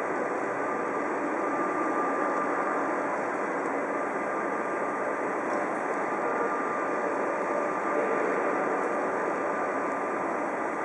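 Steady hiss of escaping steam from a DR Class 23.10 steam locomotive standing at the platform, with a faint constant tone running through it.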